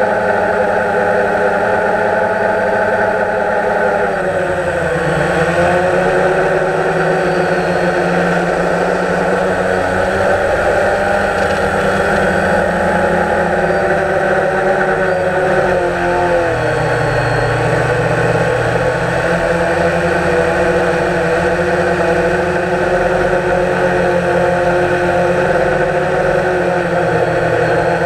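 DJI Phantom quadcopter's motors and propellers whining steadily, heard up close from the GoPro mounted on it. The pitch dips and comes back up twice, about four seconds in and again about sixteen seconds in, as the motors change speed.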